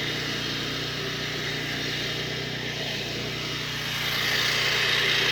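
An engine running steadily, growing a little louder about four seconds in.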